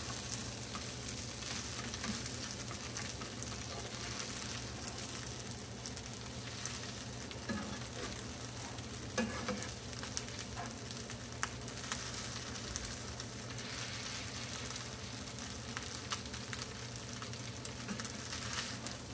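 Fried rice sizzling in a frying pan while a wooden spatula and a metal spoon stir and turn it, with scattered clicks and scrapes of the utensils against the pan.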